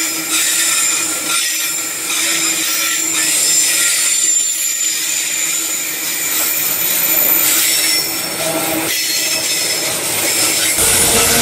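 Loaded bauxite hopper wagons rolling past, their steel wheels squealing on the rails in steady high-pitched tones over the running rumble. Near the end the sound switches abruptly to a deeper, louder rumble.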